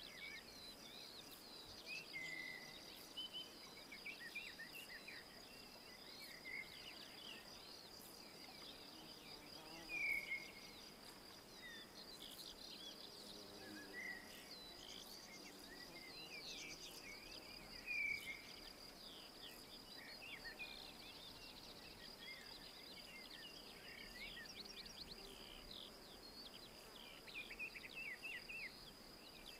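Several woodland birds chirping and calling in short scattered notes, with a few louder slurred calls about 2, 10 and 18 seconds in. Under them runs a steady, high-pitched insect trill.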